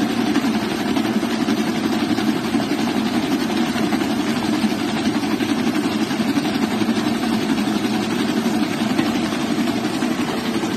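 Electric stand mixer running steadily at speed, its whisk beating egg whites to a white foamy meringue in a stainless steel bowl.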